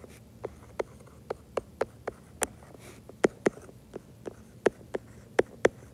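Stylus tapping on an iPad's glass screen during handwriting: a string of sharp, irregular clicks, about two or three a second.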